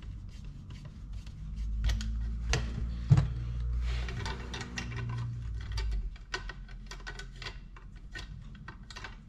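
Small clicks, taps and rubbing from a spinning reel being fitted onto a bamboo rod, its foot pushed under metal Jubilee clips, with one sharper knock about three seconds in. A low hum sits underneath through the middle of it.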